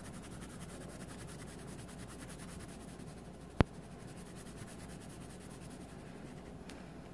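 Coloured pencil scratching back and forth on a paper page as letters are coloured in. A single sharp click about halfway through.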